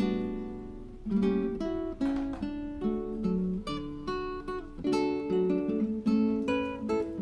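Background music: acoustic guitar playing a plucked melody with chords.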